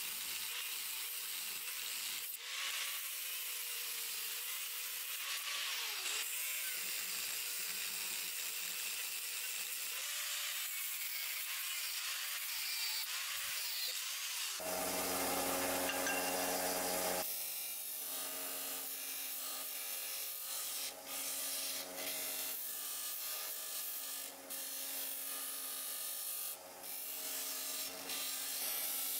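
A small abrasive wheel grinding the bevel of a steel knife blade, a steady high hiss, for about the first half. Then a motor hums loudly for a couple of seconds, and a bench disc sander runs with a steady hum and hiss, with a few sharp clicks.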